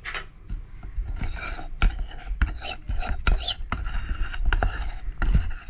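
Metal spoon clinking and scraping against a steel bowl, mixing powdered sugar into whipped egg cake batter, with many irregular clicks.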